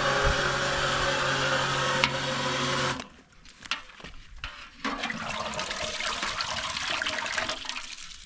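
Electric submersible fecal pump with grinder running with a steady hum, then cutting off abruptly about three seconds in. A few seconds later, water rushes and gurgles, then fades away.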